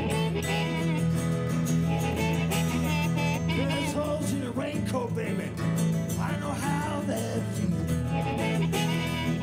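Live acoustic band music: strummed acoustic guitars under a harmonica playing a lead line with bent, wavering notes.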